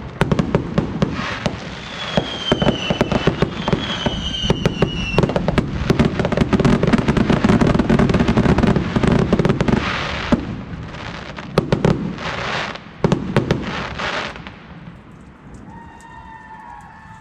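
Many fireworks going off at once in a dense barrage of bangs and crackling, with the falling whistles of rockets a few seconds in. The barrage thins out and dies away about fifteen seconds in.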